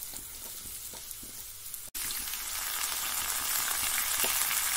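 Pieces of pointed gourd (parwal) sizzling in hot oil with cumin in a kadhai. After a short break about two seconds in, the sizzle is louder and fuller.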